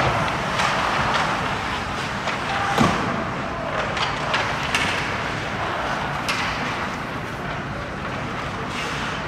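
Ice hockey play in a rink: a steady wash of skates on ice and rink noise, with sharp clacks of sticks and puck every second or so, the loudest a little under three seconds in.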